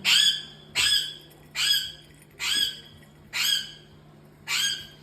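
An animal giving a harsh, pitched call six times, about one call a second, evenly spaced.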